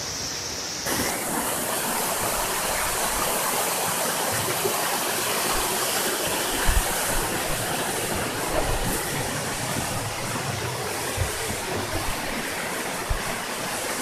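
Steady rush of a mountain stream and its cascades falling over rock in a narrow gorge, growing a little louder about a second in. A few dull low bumps come through, the loudest about seven seconds in.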